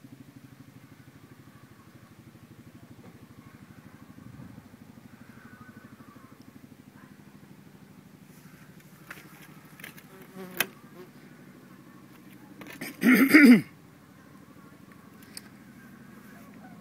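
An engine running steadily with a fast, even pulse, a few clicks over it, and a short loud burst of sound about thirteen seconds in.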